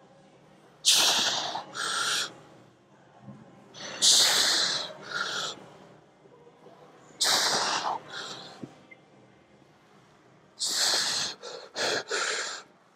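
A weightlifter breathes hard and forcefully through a heavy Smith-machine shoulder press set, near the end of the set. There are four rounds of loud, hissing breath, about every three seconds, each a long blast followed by a shorter one, one round per repetition.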